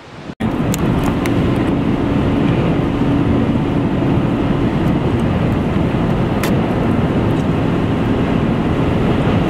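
Loud, steady rush of storm wind and road noise around a car out in a gale-force windstorm, with a faint steady hum and a few light clicks; it starts abruptly at a cut about half a second in, after quieter gusts of wind buffeting the microphone.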